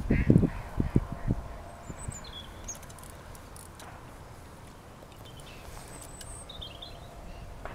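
A few low thumps in the first second and a half, then a quiet outdoor background with a few short, high bird chirps.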